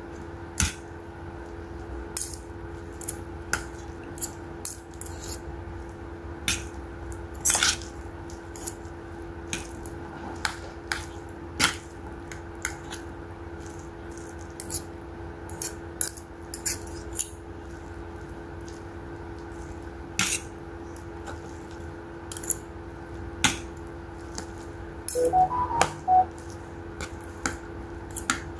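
Metal fork and spoon clinking and scraping against a stainless steel bowl as rabokki noodles are lifted and eaten, in irregular sharp clicks, with eating sounds close to a clip-on mic. A steady low hum runs underneath.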